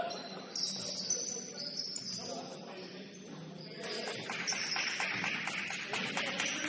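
Basketball shoes squeaking on a gym floor during play: short, high-pitched squeaks one after another, with a sharp knock about a second in.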